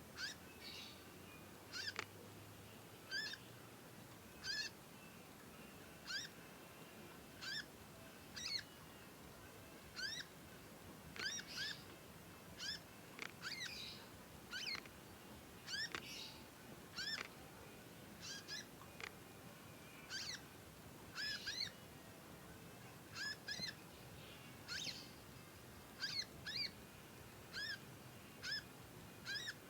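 A young conin cage bird calling over and over: short, sharp chirps of one or two notes, about one every second at uneven spacing, in the chattering way kept as a tutor song for other birds.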